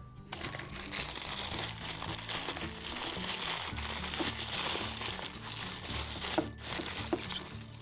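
Plastic and foil toy packaging crinkling and rustling continuously as it is unwrapped by hand, with a few sharper crackles near the end. Background music plays underneath.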